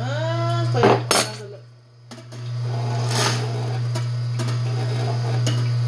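Angel twin-gear slow juicer's electric motor humming as its stainless-steel gears crush hard produce pressed down the chute with a pusher, with sharp cracks and clicks as pieces break. The hum drops out for about a second early on and then picks up again. The gears do not take the piece easily, and it takes several seconds to go through.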